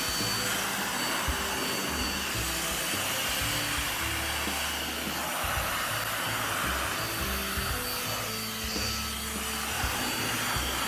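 Handheld electric air blower running steadily, a constant rush of air with a faint high motor whine, as it blows built-up dust out of an opened laptop. Background music with a bass line plays underneath.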